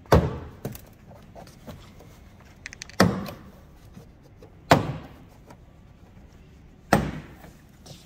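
Plastic retaining clips of a BMW Mini door card popping out of the door as the panel is pried away with a trim tool: four sharp snaps a second or two apart, with a few fainter clicks between.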